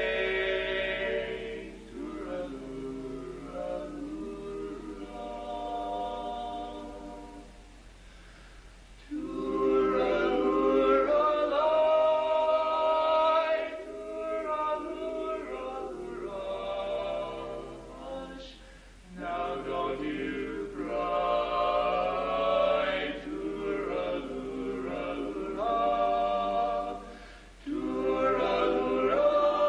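Barbershop quartet of four male voices singing a cappella in close harmony. The phrases swell louder and fall softer, with short breaks between them.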